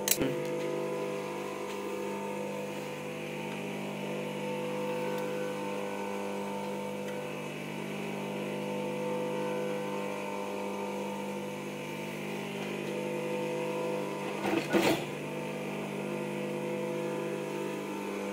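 Steady hum of an industrial sewing machine's motor running between seams, with a sharp double knock about 15 seconds in.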